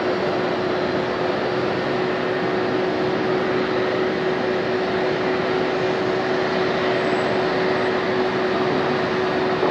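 Boeing 787-9 Dreamliner's Rolls-Royce Trent 1000 turbofans at takeoff thrust during the takeoff roll: a steady rushing jet noise with a steady hum running under it.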